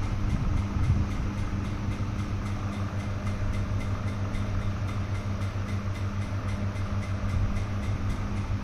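GETIDY 23L flash autoclave running mid-cycle, a steady mechanical hum from its pump and heating system with no change through the stretch.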